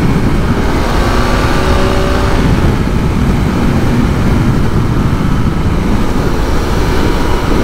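KTM 690 SMC R's single-cylinder engine running steadily on stock exhaust while riding, under a heavy rush of wind noise on the microphone.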